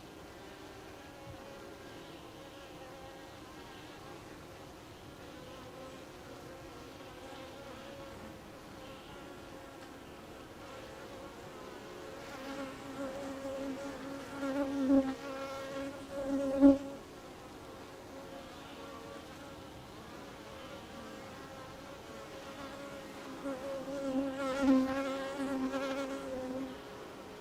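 Honeybees buzzing around a beehive: a steady hum of many bees, with single bees flying close by and buzzing louder around the middle and again near the end.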